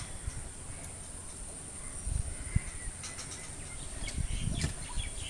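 Outdoor ambience: a steady high-pitched whine like insects, a low rumble, and a few short bird calls with some clicks over the last two seconds.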